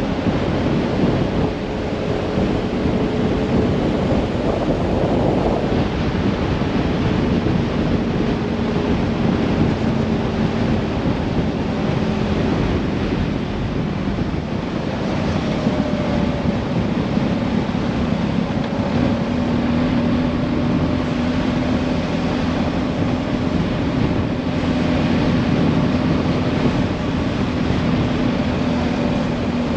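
Vehicle engine running steadily on the move, its low hum dipping a little in pitch about halfway through and rising again, under loud wind rush on the microphone.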